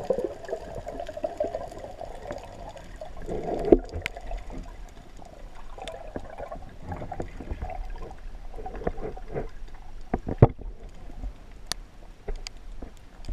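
Muffled underwater sloshing and gurgling heard through a camera's waterproof housing, with a few sharp clicks, the loudest about ten seconds in.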